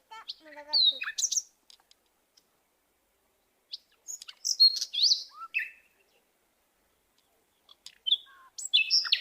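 Small bird chirping: short, high calls with quick pitch glides, in three spells, about a second in, around four to five seconds in, and near the end.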